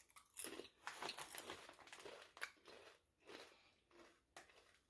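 A person biting into and chewing crunchy ridge-cut potato chips. The crunches are irregular, thickest in the first couple of seconds and then fainter and sparser as the chewing goes on.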